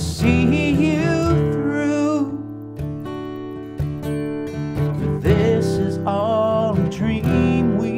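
Acoustic guitar strummed steadily, with a wordless vocal melody over it in two phrases, one at the start and one from about five seconds in.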